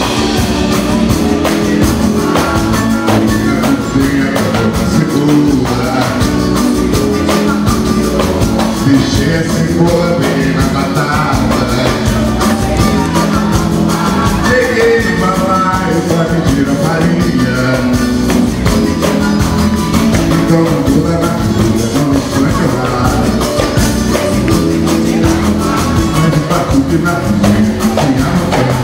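Live samba band playing, with a man singing lead into a microphone over the band.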